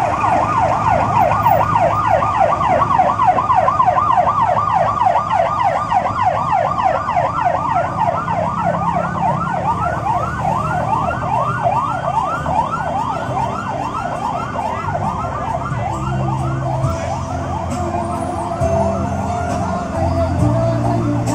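A vehicle siren in a funeral procession, yelping in a fast, regular up-and-down sweep several times a second, fading out about two thirds of the way through. A steady tone and a low rumble are left near the end.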